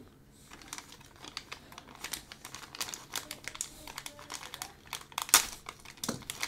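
Small clear plastic parts bag crinkling as hands handle and open it: irregular crackles, with one louder crackle about five seconds in.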